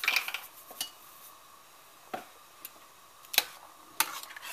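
A spice jar shaken briefly over a pot, then a metal spoon knocking against a stainless steel pot a few times as tomato sauce is stirred.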